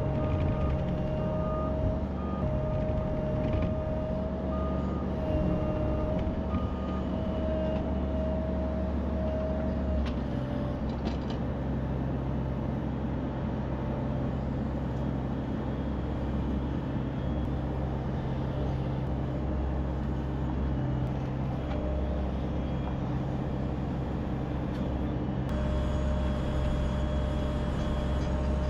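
Diesel engine of heavy construction equipment running steadily, with a backup alarm beeping repeatedly during the first ten seconds and again near the end as the machine travels in reverse.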